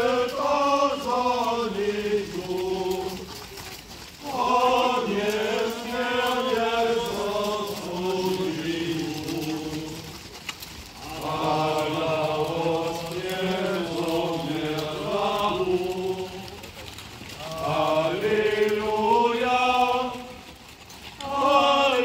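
A group of mounted men singing an Easter hymn together in unison, in long sung phrases separated by short breaths, with faint hoof clops on gravel beneath.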